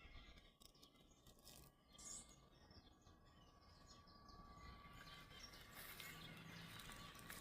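Near silence: faint outdoor background noise with a few faint rustles and a brief high chirp about two seconds in.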